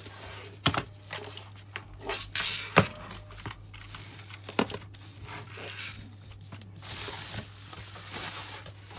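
Packaging crinkling and rustling as a keyboard is unwrapped and lifted out of its box, with a few sharp knocks from handling.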